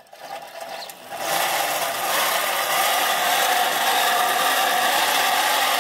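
Plastic toy car fixed to a grinding-wheel sharpening machine, pressed by hand against the running machine so it gives a steady, loud rasping whir that starts about a second in. The noise is there to draw customers.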